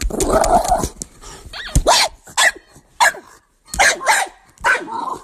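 A dog growls for about a second, then gives about seven short barks and yips, spaced unevenly.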